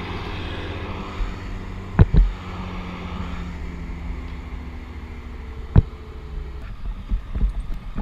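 An engine running steadily with a low hum, broken by two sharp knocks, about two seconds in and again near six seconds. The hum fades near the end, giving way to scattered bumps.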